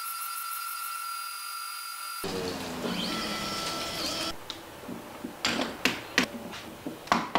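Router spindle of an X-Carve CNC machine running with a steady high whine as it cuts wood. About two seconds in the sound switches abruptly to a noisier cutting sound. In the second half there is a series of sharp wooden knocks and clicks as the wooden T-track clamps are handled and tightened.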